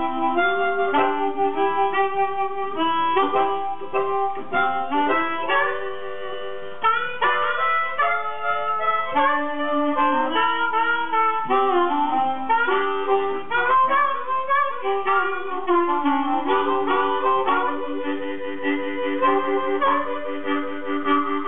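Two blues harmonicas playing together, chords and melody lines weaving over each other, with bent notes sliding in pitch around the middle.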